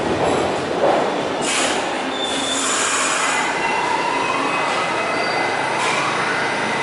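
R68 subway train's steel wheels squealing against the rails on a tight tunnel curve over steady rumbling wheel and track noise. Squealing tones rise in pitch from about the middle onward, with a thin steady screech held above them.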